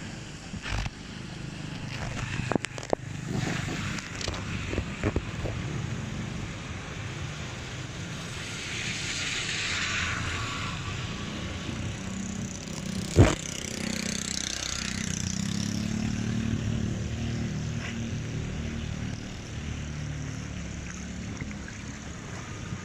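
Motorbikes and other vehicles passing on a wet road, their engines running over a steady wash of water and tyre noise. Several knocks in the first few seconds and one sharp, loud knock about thirteen seconds in.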